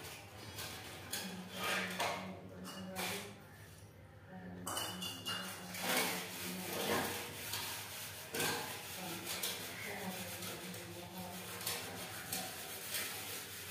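Scattered clinks and knocks, as of household objects or utensils being handled, over a low steady hum.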